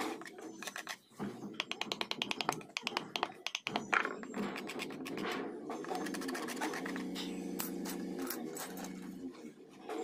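Hand-carving tools working teak wood: quick runs of light taps and the scratching of a chisel on the grain. A steady pitched background sound takes over in the second half.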